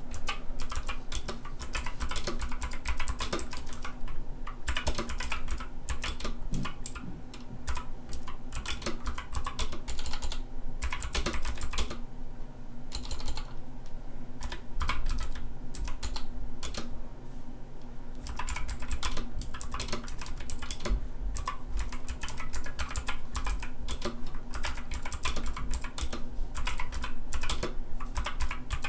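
Typing on a GK61 mechanical keyboard with clicky Gateron Optical Blue switches: fast runs of key clicks broken by a few short pauses.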